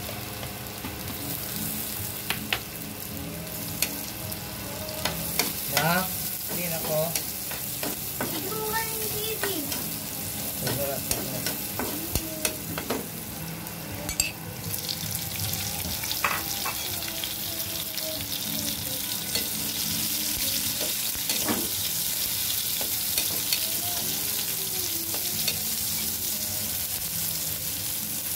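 Minced garlic and onion sizzling in hot oil in a wok, with a spatula scraping and tapping against the pan as it is stirred. The sizzle gets louder about halfway through.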